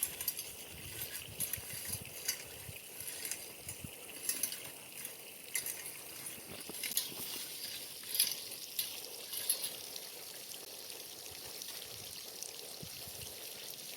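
Water trickling and pouring, with scattered light crackles and clicks through the first two thirds that settle into a steady flow.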